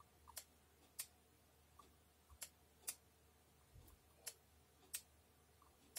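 Faint, sharp clicks, about seven of them at irregular spacing, over a low steady hum.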